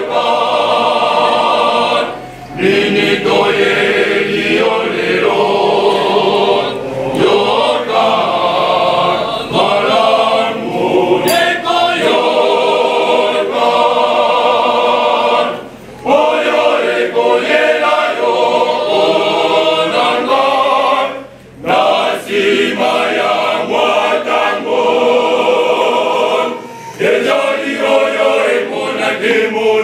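Church choir, mostly men's voices, singing together, in phrases broken by a few short pauses.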